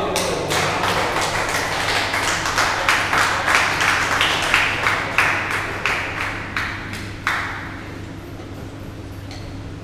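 Table tennis rally: a celluloid-type ball struck by rackets and bouncing on the table, sharp clicks every half second or so that echo in the hall. The rally ends about seven seconds in.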